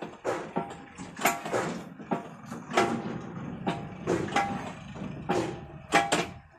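Steel leaf-spring leaf knocking against the ram and rollers of a leaf-spring setting press as it is pressed and shifted along to restore its arch: a string of irregular metallic clanks, about one or two a second, several with a brief ring.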